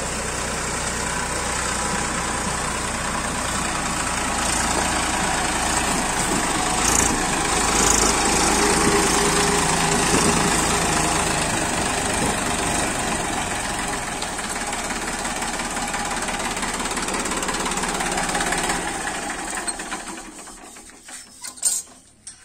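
Massey Ferguson diesel tractor engine running steadily and loudly, then shut off near the end, its sound dying away quickly. A few sharp knocks follow.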